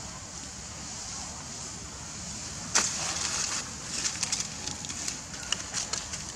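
Dry leaf litter crackling and rustling: a sudden scuff about three seconds in, then a run of short sharp crackles, over a steady high hiss.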